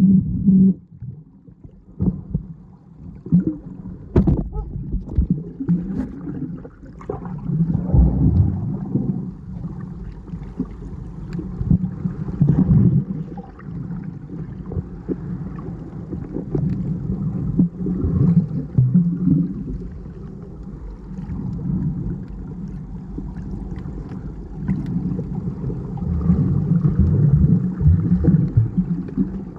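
Muffled water sloshing and gurgling around a camera in the sea while snorkelling, swelling and fading, with a few knocks about four seconds in.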